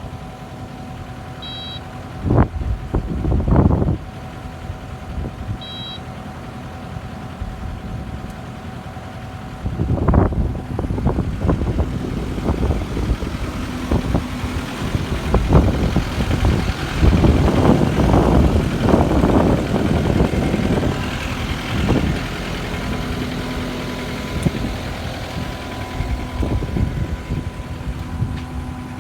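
Kubota SSV75 skid steer's diesel engine running steadily, with two short electronic beeps in the first six seconds. Irregular bursts of louder engine and hydraulic noise come as the loader works, the longest stretch a little past the middle.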